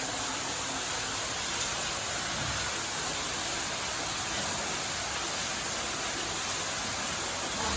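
Steady rush of falling and streaming water echoing in a cave passage, an even hiss with no breaks.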